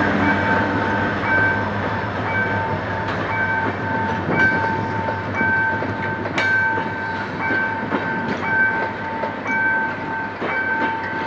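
Level-crossing warning signal chiming in a steady repeated two-tone pattern, about three chimes every two seconds, while passenger coaches roll past with the rumble of wheels on rail and occasional clacks over rail joints.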